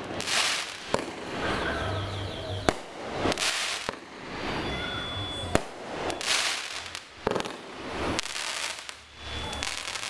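Street fireworks going off: about half a dozen sharp bangs a second or two apart, with hissing and crackling between them.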